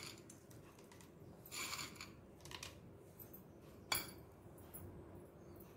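Quiet, brief rattle of dry boondi sliding out of a steel bowl into a bowl of spiced water, then one sharp knock just before four seconds in.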